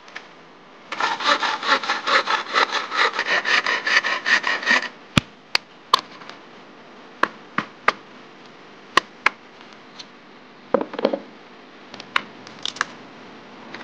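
Hand saw cutting bamboo in quick, even strokes, about four or five a second, for some four seconds. Then a hammer strikes a chisel into bamboo: sharp separate knocks in twos and threes, with a brief scrape and a few light knocks near the end.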